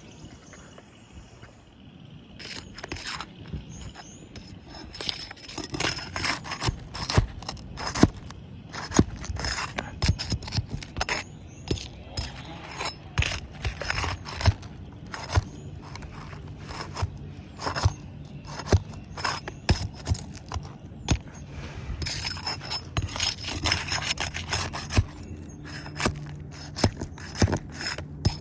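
Old, brittle asphalt roof shingle being scraped and pried loose by hand for removal: irregular scrapes, clicks and cracks.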